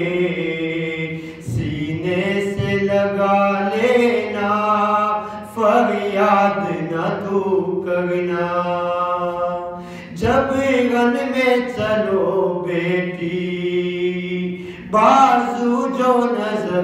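A man chanting an Urdu marsiya, a mourning elegy, solo and unaccompanied. His voice holds long, gliding notes, with a few brief pauses between lines.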